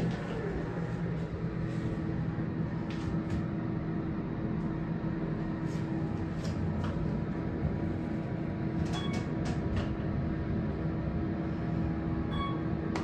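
Otis hydraulic elevator ride: the door shuts with a knock at the start, then a steady low hum runs under the ride with a few light clicks. A short chime sounds near the end.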